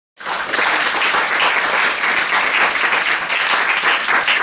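Audience applauding: dense, steady clapping from many hands that cuts in abruptly just after the start.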